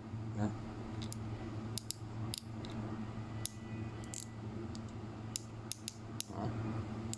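Irregular sharp clicks of a Daiwa baitcasting reel's Magforce brake adjustment dial being turned by hand through its detent positions.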